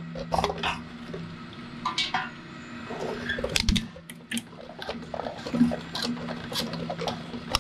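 Shredder motor humming steadily while its cutter blades knock and scrape against a pair of large rubber-armoured binoculars that bounce on top without being caught, with a heavier knock a little past halfway.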